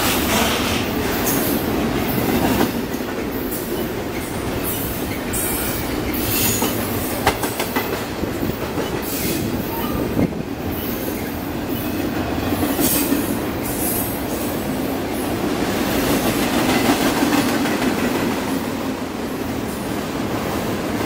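Double-stack intermodal freight train rolling past: a steady noise of steel wheels on the rails, with several brief high-pitched wheel squeals.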